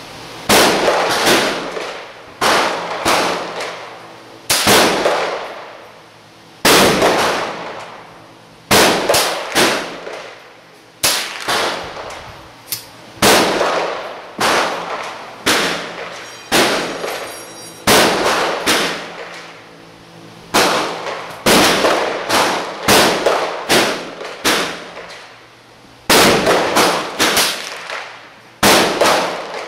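Rifle shots at an indoor shooting range, about forty in all. They come singly and in quick runs of two to four, and each rings off the range walls.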